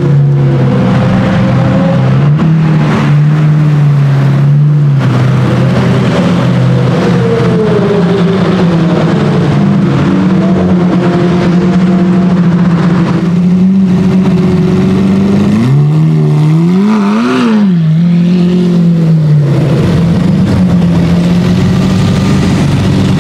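Lamborghini Murciélago LP670-4 SV's V12 running through an aftermarket Reiter exhaust, idling with a steady, deep note. About two-thirds of the way in it gives one short rev that rises and falls back to idle.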